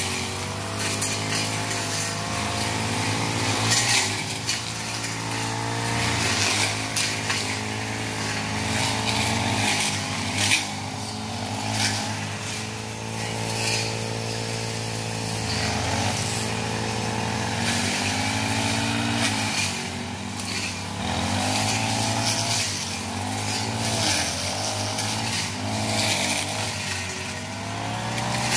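Backpack brush cutter's engine running and revving up and down again and again as it cuts through grass and undergrowth, with scattered sharp ticks of debris striking.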